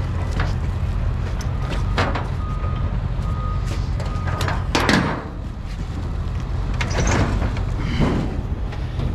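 An engine running steadily with a low rumble, with scattered sharp metallic clanks and knocks.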